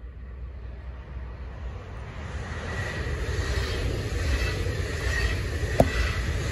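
Train approaching along the line, its rumble and rail noise growing steadily louder, with a faint high ringing tone and one sharp click near the end.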